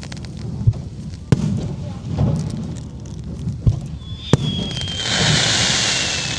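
Fireworks display: several sharp bangs of aerial shells bursting, then from about four seconds in a whistle falling slowly in pitch, joined near the end by a loud hissing crackle.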